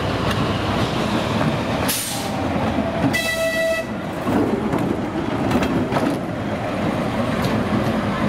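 TU2 narrow-gauge diesel locomotive hauling a passenger train, running with a steady rumble. A brief hiss comes about two seconds in, then a short horn blast of under a second.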